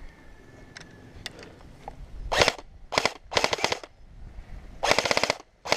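JG G3 airsoft electric rifle firing full-auto bursts, each a rapid rattle of shots: four short bursts from about two seconds in, with a fifth starting at the very end. A few faint single clicks come before them.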